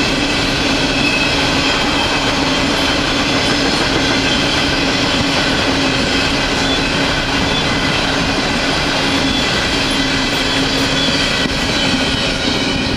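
Empty Norfolk Southern coal hopper cars rolling past on the rails: a steady, loud rumble and clatter of wheels over track, with high steady whining tones running through it.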